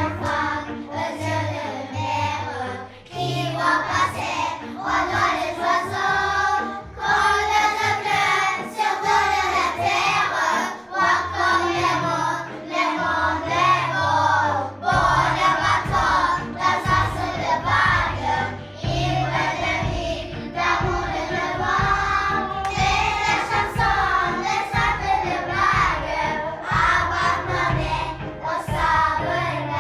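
Children singing a song together over backing music with a bass line; a steady beat joins about halfway through.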